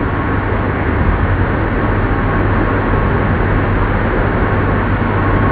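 Old lathe running: steady machine noise with a low hum and a faint, thin high whine over it.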